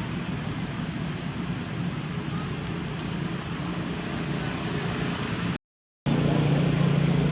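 Steady outdoor background noise: a low hum like distant traffic under a constant high hiss. It cuts to complete silence for about half a second near the end, then resumes.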